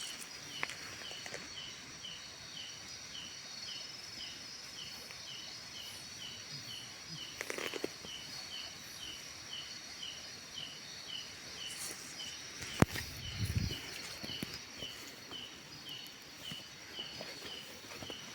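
Insects chirping: a steady high-pitched buzz with a regular chirp about twice a second. A sharp click comes about thirteen seconds in, followed by a brief low thump.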